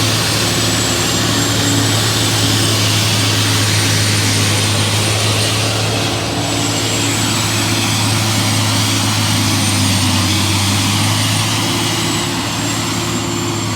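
Truck-mounted Haybuster tub grinder running steadily while grinding straw bales: a loud, even low hum from its engine and grinder, with a faint thin high whine above it.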